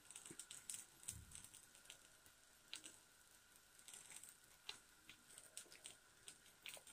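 Faint, scattered crackling of a gram-flour roti frying in a pan on a gas stove, a few small ticks a second.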